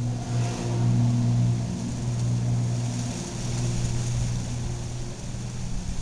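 1981 Casablanca Zephyr ceiling fan running as its blades pick up speed: a steady electric motor hum with a swish of air from the blades that grows stronger about halfway through.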